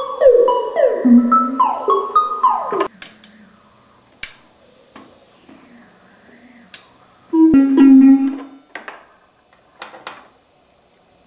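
Buchla 200 modular synthesizer playing a quick run of plucked-sounding notes, each sweeping down in pitch, which cut off suddenly about three seconds in. After that come scattered clicks of patch cables being handled and plugged into the panel, and about seven seconds in a loud held synth tone sounds for about a second.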